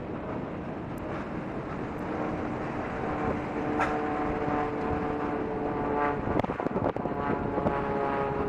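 A motor drone with several even tones over steady rushing noise, starting about two seconds in and shifting pitch and growing unsteady about six seconds in.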